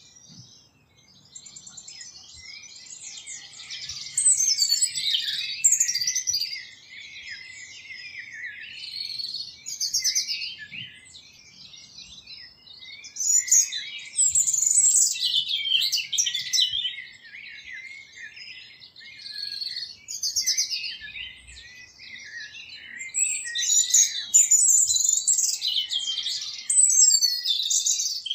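A busy chorus of small songbirds chirping and twittering over one another, with the level rising and falling every few seconds.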